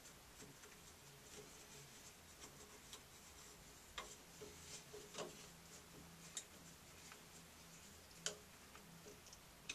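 Faint, scattered clicks and small knocks as metal and plastic parts of a shower valve cartridge are handled and turned by hand in the valve body. The loudest click comes about eight seconds in, over near silence.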